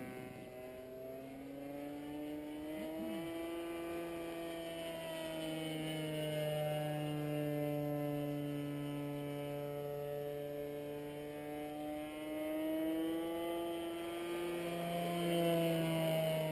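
Internal-combustion engine of a radio-controlled Ultimate aerobatic biplane running in flight overhead, a steady propeller drone whose pitch rises and falls slowly as the model manoeuvres. It is loudest near the end.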